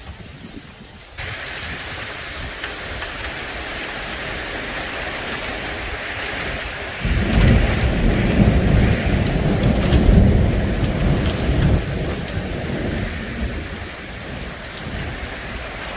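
Heavy rain falling steadily with a dense hiss. About seven seconds in, a long, low rumble of thunder rolls in loudly, then fades away over several seconds.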